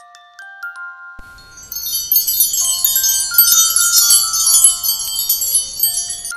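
A simple background tune of single held chiming notes, joined about a second and a half in by a loud, dense wind-chime shimmer that cuts off suddenly near the end.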